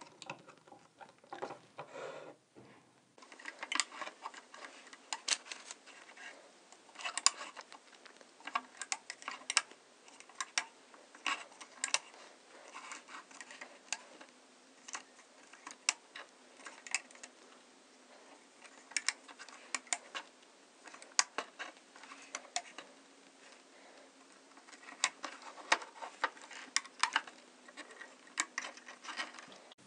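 Irregular light clicks and taps of rubber loom bands being stretched onto and pushed down the plastic pegs of a Rainbow Loom, some coming in quick clusters.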